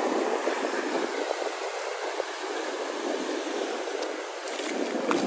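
Steady wash of sea surf with wind on the microphone, and a few light clicks near the end.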